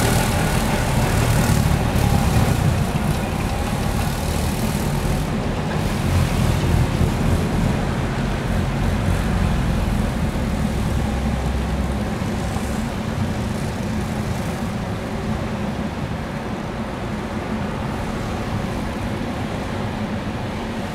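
Sasara snowplow tram running along snow-covered rails with its rotating bamboo brooms sweeping snow, a dense rumble that slowly fades as it moves away.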